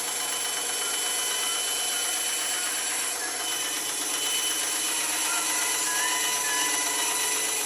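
Bandsaw running steadily, its blade cutting through a piece of wood.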